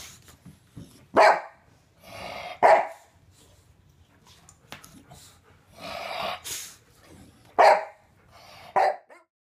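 A dog barking repeatedly: about four loud, sharp barks, irregularly spaced, with softer, rougher barks between them. The barking stops abruptly near the end.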